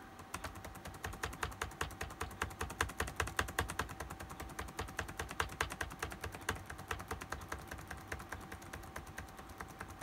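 Laptop keyboard's F2 and F7 keys tapped over and over in a fast, even run of light clicks, several a second, to get into the BIOS setup or boot menu during startup. A faint steady tone runs underneath.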